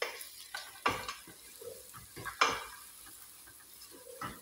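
Wooden spoon stirring and scraping a frying onion-and-spice masala around a metal pot. Several sharp scrapes, the loudest about a second and two and a half seconds in, sit over the low sizzle of the frying masala.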